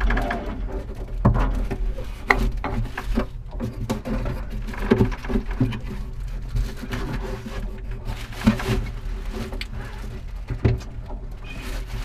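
Irregular knocks, clunks and rattles of hands and gear being worked in a cramped space, over a steady low hum.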